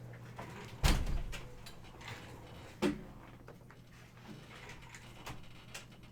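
Two dull thumps about two seconds apart, the first the louder, with light clicks and handling noise between them, over a steady low hum.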